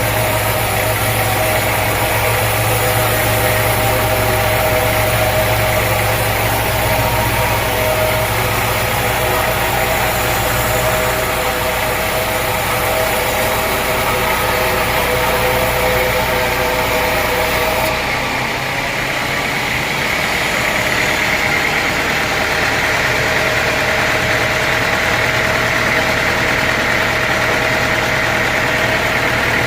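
An engine running steadily with a constant pitch. About two-thirds of the way through, the deep low rumble drops out abruptly while the running goes on.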